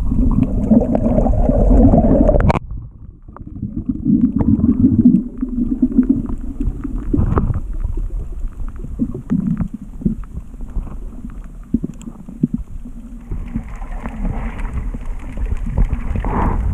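Muffled rumbling and gurgling of water, with scattered clicks and swells of noise, as heard through an underwater camera.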